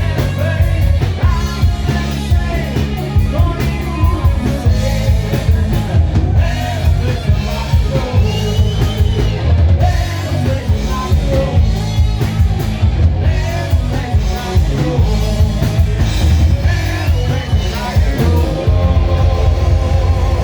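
Live rock band playing a song: a singer over drum kit and guitars.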